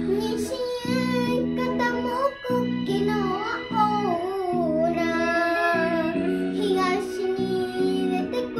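A young girl singing a Japanese song over a karaoke backing track with guitar; her voice comes in about half a second in, following the instrumental introduction.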